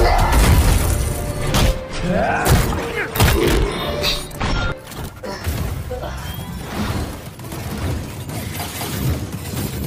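Action-film soundtrack: music under heavy thuds, crashes and shattering impacts, densest in the first few seconds and sparser after.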